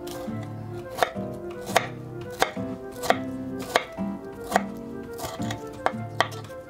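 Chef's knife slicing a tomato on a wooden cutting board, the blade knocking the board about nine times at roughly two-thirds of a second apart. Lo-fi background music plays underneath.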